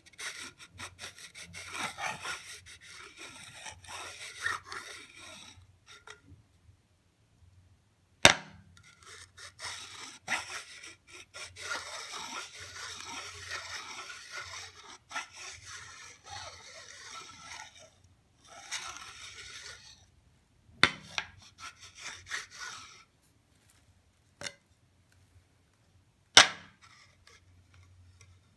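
Hard object scraping and rubbing across the underside of a glazed ceramic tile, most likely a magnet being slid about to pull the magnetic glaze into spikes. It comes in stretches of several seconds broken by short pauses, with three sharp knocks as the object strikes the tile.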